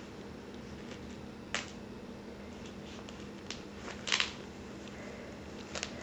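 A few sharp plastic clicks of a TV remote control being pressed and handled, the loudest a double click about four seconds in, over a steady low hum.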